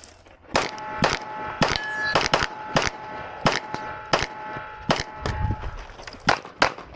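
A rapid string of pistol shots, over a dozen, fired singly and in quick pairs. A metallic ringing at several pitches hangs on between the shots and fades out after about five seconds.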